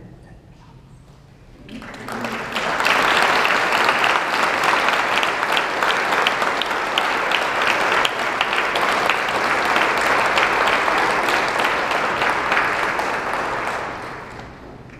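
Congregation applauding. The clapping swells in about two seconds in, holds loud and dense, and fades out near the end.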